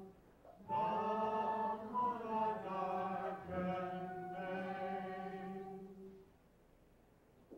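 A choir of voices singing a slow phrase of a song, which breaks off about six seconds in.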